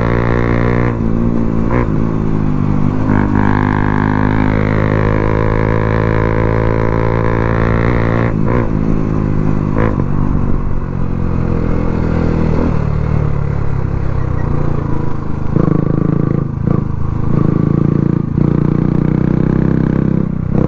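Motorcycle with an aftermarket Akrapovic exhaust running at a steady engine speed, a continuous droning note that changes pitch past the midpoint. A few short sharp cracks sound over it.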